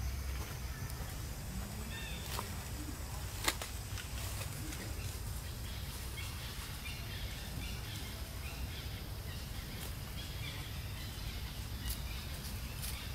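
Outdoor ambience: a steady low rumble, with a few sharp clicks (the loudest about three and a half seconds in) and faint, short high chirps.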